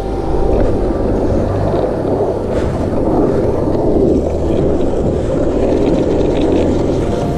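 Small wheels rolling fast over asphalt, a steady rumbling roar, with wind buffeting the microphone.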